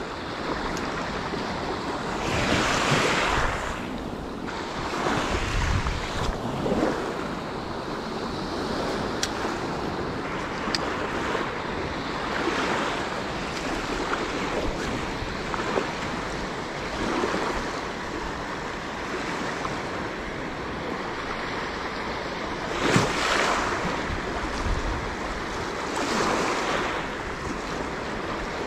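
Small waves washing and breaking at a pebbly shoreline, with wind buffeting the microphone. The wash swells louder a few times, most sharply at about three-quarters of the way through.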